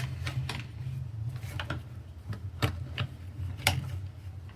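Scattered light plastic clicks and taps as a VR headset's parts are handled and snapped together while its comfort strap is fitted, over a low steady hum.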